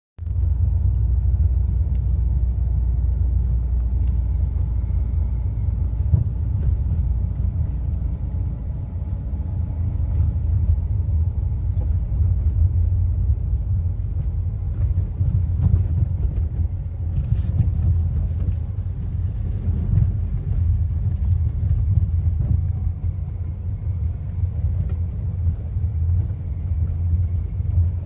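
Motorcycle running steadily while riding along a dirt road, a continuous low rumble with no letup.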